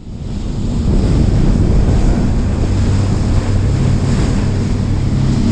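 A boat's engine running steadily underway with a low hum, with water rushing past the hull and wind on the microphone. It fades in over the first second.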